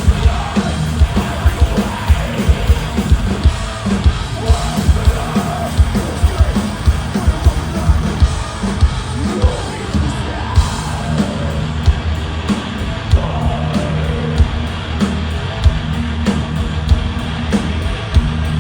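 Thrash metal band playing live at full volume: rapid, dense drum hits over a heavy low end, with yelled vocals.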